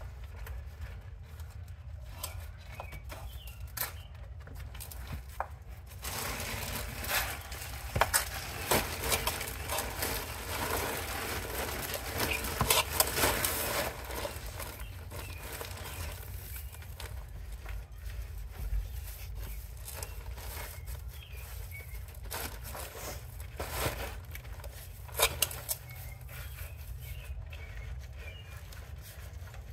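Plastic mulch bag rustling and crinkling as gloved hands scoop and spread mulch, with scattered clicks; the handling is busiest for several seconds in the middle, over a steady low rumble.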